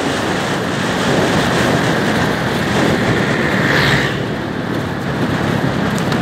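Steady rushing noise of a Suzuki motor scooter on the move: wind on the microphone over the engine and tyres.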